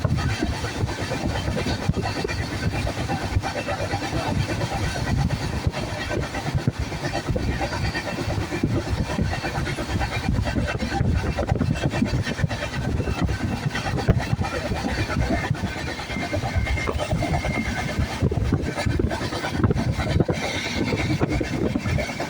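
Moving train, a steady rumbling running noise with many small clicks and rattles.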